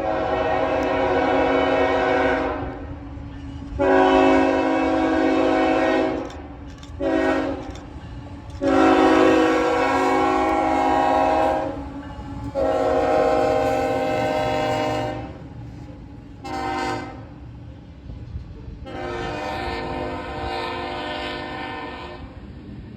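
CSX freight locomotive's multi-chime air horn sounding grade-crossing signals: long, long, short, long blasts, then another long and a short, with a softer long blast near the end, the warning for a string of road crossings. The low rumble of the approaching train runs beneath.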